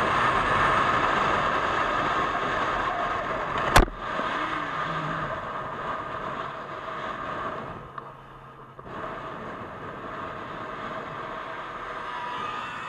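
Vehicle driving at highway speed: a steady rush of engine, tyre and wind noise. A single sharp, loud crack about four seconds in, and the noise briefly drops away a little past halfway.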